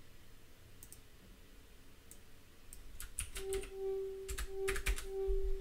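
Computer keyboard keys typed in a quick run of clicks in the second half, after a few single mouse or key clicks. A steady mid-pitched hum comes in at the same time and breaks off and resumes several times.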